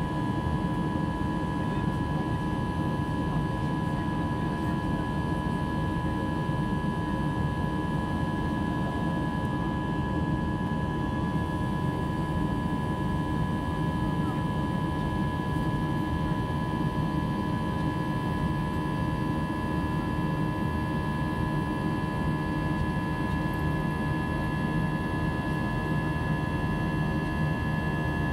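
Airbus A320-200 cabin noise during the climb after takeoff: a steady engine drone with a low rumble and steady high whining tones over it.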